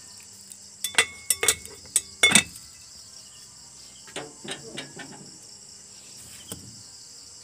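A steady, high chirring chorus of crickets, with a run of loud, sharp clinks and knocks from about one to two and a half seconds in, a softer clatter around four to five seconds, and one more click near the end.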